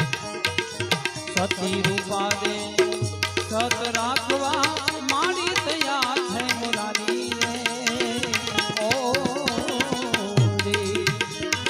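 Instrumental interlude of a Gujarati bhajan: tabla keeps a steady beat, with bass strokes that slide down in pitch. A wavering melody line plays over it from about four seconds in until near the end.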